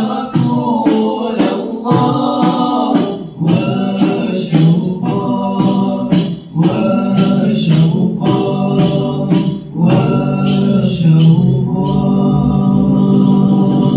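Male vocal ensemble singing a Syrian-style Arabic nasheed (inshad) together, accompanied by hand-played drum and frame drum strokes. The drumming stops about 11 seconds in and the voices hold a long final note.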